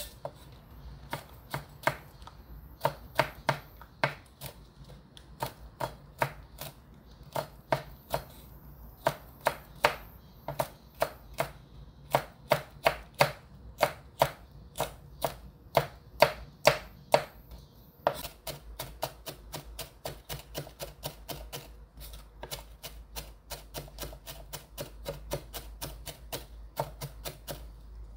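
Chef's knife chopping cheongyang green chili pepper on a wooden cutting board: sharp, evenly spaced knife strikes about two to three a second. About two-thirds of the way through, the strikes turn faster and lighter as the sliced pepper is minced.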